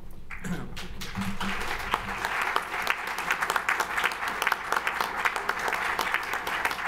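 Audience applauding, picking up about a second in and then going on steadily.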